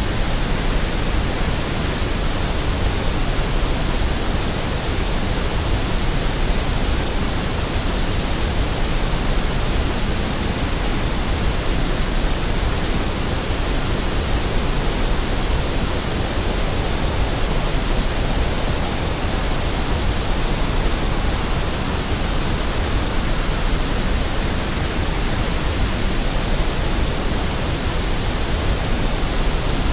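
Steady white noise: an even, unchanging hiss across the whole range from low to high, with no events or changes.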